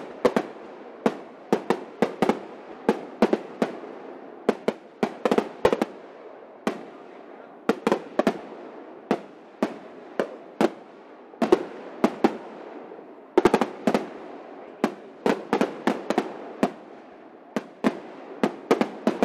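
Aerial fireworks shells bursting overhead: a rapid, irregular series of sharp bangs, about two to three a second, with a steady haze of noise between them.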